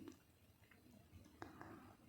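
Near silence: faint room tone with one soft click about one and a half seconds in.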